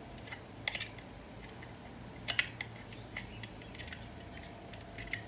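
Small screwdriver and screws against a hard plastic knife rack frame as the screws are driven in: irregular light clicks and scrapes, some in quick pairs.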